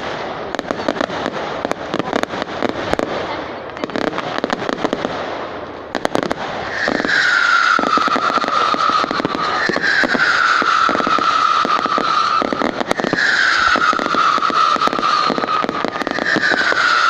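Fireworks display: dense crackling and popping with bangs. From about seven seconds in, a high falling whistle repeats about four times over the crackle.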